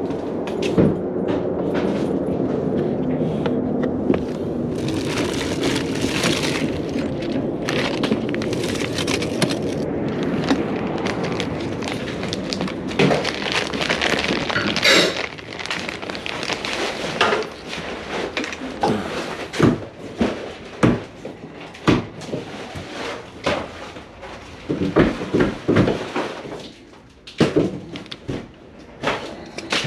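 Hands-on work noise: a steady rushing noise for about the first half, then a run of scattered sharp knocks and clicks, such as tools and wiring being handled at a switch box.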